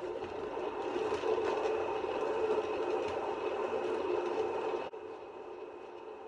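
Motor of a paint spinner whirring steadily as it spins a small tile of wet poured acrylic. The hum builds a little and then drops abruptly to a quieter whir about five seconds in.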